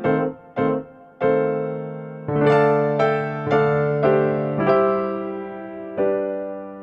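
Background music: electric piano playing a slow melody, a few short notes near the start and then longer held notes that ring and fade.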